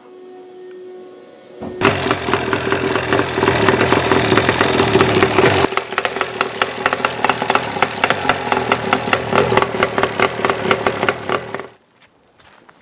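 Rebuilt Kawasaki 650cc two-stroke jet ski engine catching about two seconds in and running with a rapid, even firing beat, then stopping abruptly near the end. A quieter steady hum comes before it starts.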